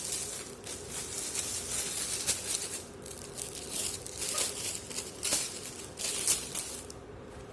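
Packaging crinkling and rustling in irregular crackles as a new device is unwrapped and pulled out of its box.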